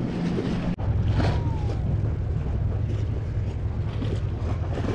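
Steady wind rumble buffeting the camera microphone, with a faint wash of water behind it; the sound drops out for an instant under a second in.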